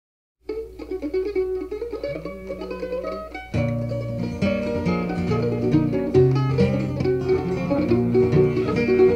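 Acoustic string-band music: a plucked string lead starts up about half a second in, and a fuller band with bass joins, louder, about three and a half seconds in.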